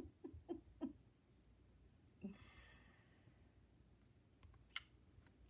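Faint handling sounds at a craft table, close to silence: four light taps in quick succession at the start, a soft breathy rustle a little after two seconds in, and one sharp click near the end, the loudest sound.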